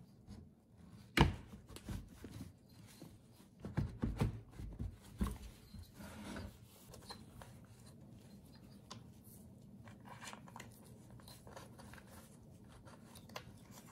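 Homelite Super 2 chainsaw's engine assembly being slid back into its plastic housing: knocks of metal and plastic against each other, one sharp knock about a second in and several more around four to five seconds, then faint rubbing and small clicks as the parts are worked into place.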